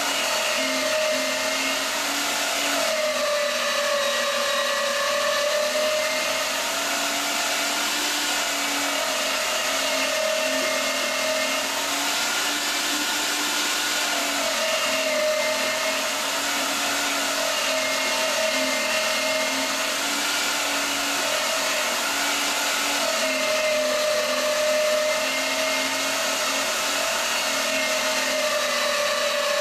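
Sunmile SMG33 electric meat grinder running steadily as it grinds raw meat, a continuous motor hum that dips slightly in pitch now and then.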